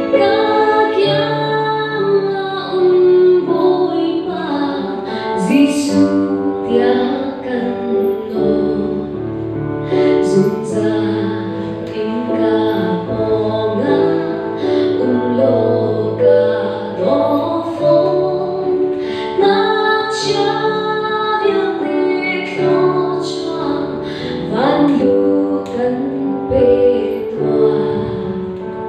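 A woman sings a Christian praise song into a handheld microphone, amplified over sustained instrumental accompaniment.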